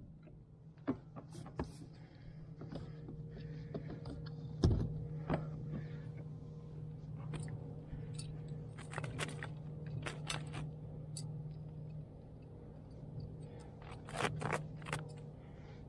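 Clicks, knocks and scrapes of fishing gear and rod being handled in a kayak while a hooked fish is brought aboard, with the sharpest knock about a third of the way in and another cluster near the end, over a steady low hum.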